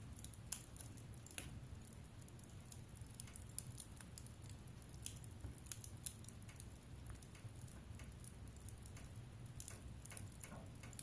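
Wood fire crackling: irregular sharp pops and snaps scattered over a low steady rumble.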